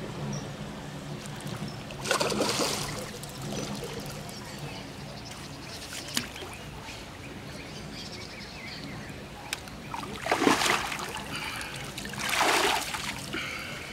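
A hooked fish splashing at the water's surface during the fight, three short splashes a few seconds apart.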